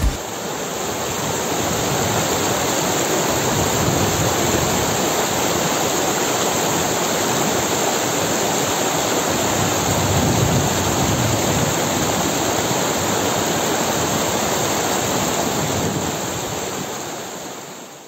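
Shallow stream rushing and splashing over rocks in white water, a steady wash of water sound that fades out over the last two seconds.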